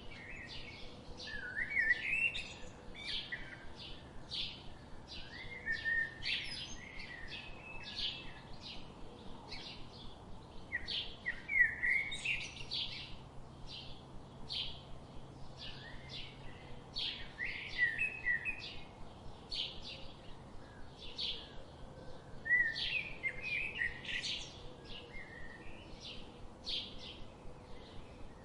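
Birds chirping: a steady run of short, high chirps at about two a second, broken every five seconds or so by a longer, lower warbling phrase.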